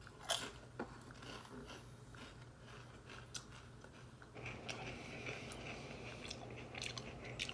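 A person biting and chewing wavy Pringles potato crisps: a sharp crunch just after the start and another just under a second in, then scattered crackly chewing that gets denser and louder about halfway through.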